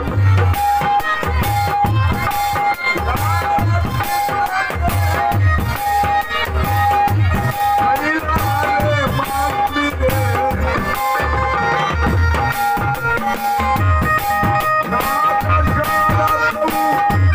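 Instrumental accompaniment music with a steady hand-drum beat and a short high note repeating in time with it.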